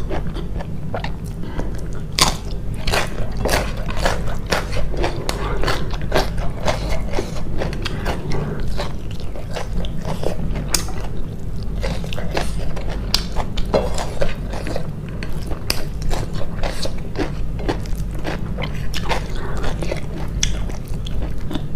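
Close-miked eating: biting and chewing with many irregular crisp crunches and wet mouth clicks, over a steady low hum.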